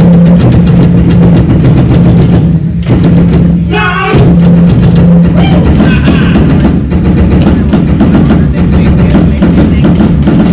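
Several drummers beating large drums with sticks in a fast, driving rhythm, over a steady low note.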